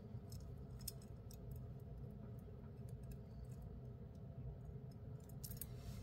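Faint, scattered clicks and clinks of glass beads and a metal pendant being handled, with a few quick clicks near the end, over a steady low hum.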